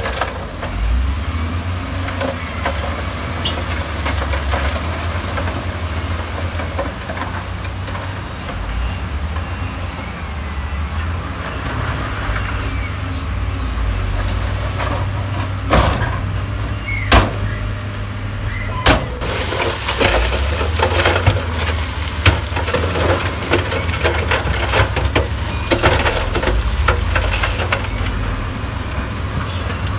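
Heavy diesel construction machinery running with a steady low rumble, with scattered sharp knocks and clatter that grow busier about two-thirds of the way in.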